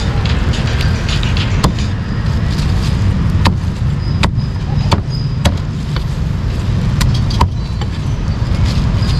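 A cleaver chopping meat on a wooden block: irregular sharp knocks, about eight in all, over a steady low rumble of street traffic.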